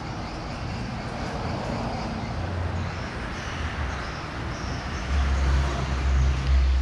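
Steady rumble and hiss of road traffic, with a deeper engine rumble swelling from about five seconds in.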